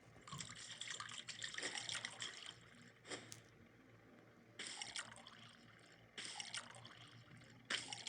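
Water from a tap running into a sink in spells: one of about two seconds, then three shorter ones, as if turned on and off or interrupted by hands under the stream.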